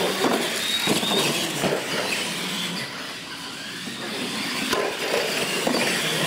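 Radio-controlled monster trucks racing on a concrete floor: motors running and big tyres rolling, with several sharp knocks and clatters as the trucks bounce over ramps.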